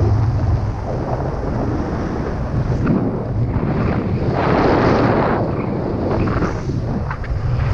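Wind buffeting a skydiver's camera microphone while descending under an open parachute, a steady rushing that swells into a stronger gust about four to five seconds in.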